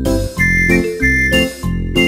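Background music: a jingly tune with high chiming notes over a bass line and a steady beat.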